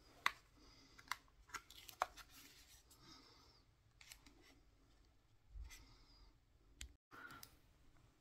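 Faint, scattered sharp clicks and taps from handling an eyeshadow palette and opening its lid, several close together in the first two seconds and a few more later on.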